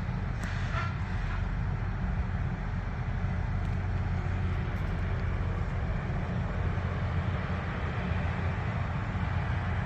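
LORAM rail grinder train working on the track: a steady low drone with an even grinding hiss over it.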